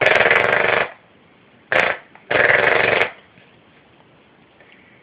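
Submachine gun imitated with the mouth: three rattling bursts, a long one, a short one and another long one, stopping about three seconds in.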